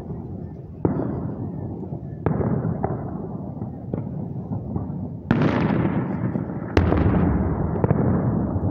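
Distant aerial fireworks shells bursting: about five sharp booms, the two loudest late on, each trailing off into a long low rumble that rolls on between bursts.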